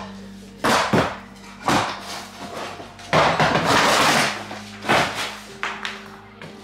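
Wooden boards being torn out and handled during floor demolition: a series of sharp knocks and bangs, with a longer clattering scrape about three seconds in.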